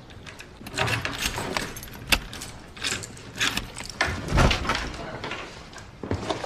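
A string of irregular sharp clicks and clatters, like small hard objects being handled, with the loudest knocks about two seconds in and again a little past four seconds.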